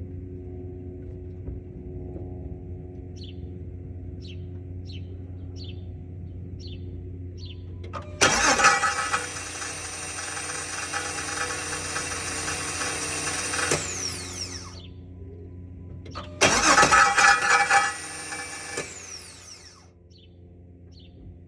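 Two start attempts on a 2009 Dodge Charger: two loud bursts of starting noise, the first about six seconds long and the second about two and a half, without the engine catching and running on. A steady hum runs beneath before and between them.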